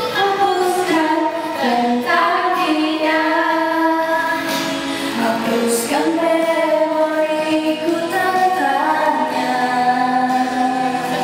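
A young woman singing a slow melody into a handheld microphone, holding long notes and sliding between them.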